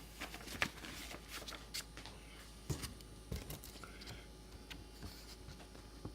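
Faint rustling of paper with scattered light clicks and taps as pages are handled and turned.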